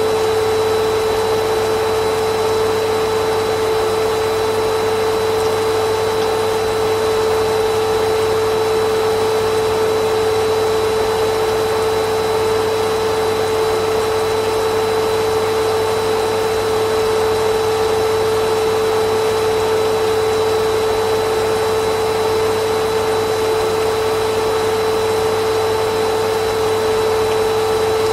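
Vacuum cleaner running steadily: a constant motor whine with a strong hum over an even rush of air, unchanging throughout.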